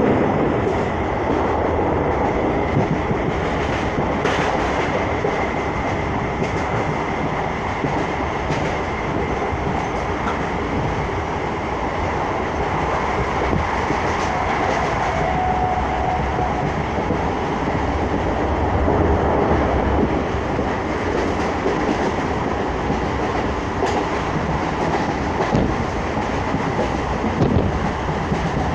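Suburban electric local train running at speed, heard from inside the carriage: a steady rumble of wheels on the rails with faint clicks as they pass over rail joints.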